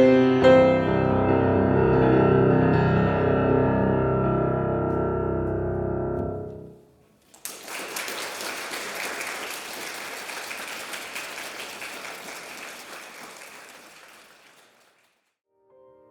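Piano closing a piece: final chords struck, ringing out and then damped, cutting off about six and a half seconds in. After a brief silence, audience applause follows for about seven seconds and fades away.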